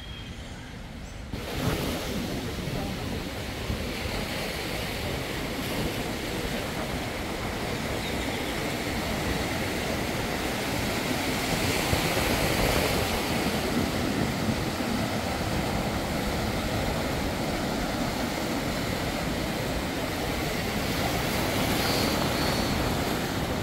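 Steady rushing noise of wind and sea surf at the shore, starting abruptly about a second in and swelling slightly midway.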